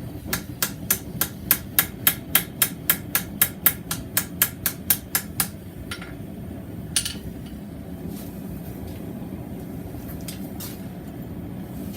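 Hand hammer striking a mild-steel square bar on an anvil in a quick, even rhythm, about four light blows a second, knocking down the bar's corners. The run of blows stops about halfway through, followed by two single taps and then a steady low hum.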